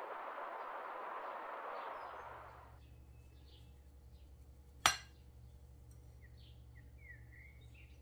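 Rushing river water for the first two and a half seconds, then a quieter stretch with a steady low hum and faint bird chirps, broken about five seconds in by a single sharp clink of a utensil against a ceramic bowl.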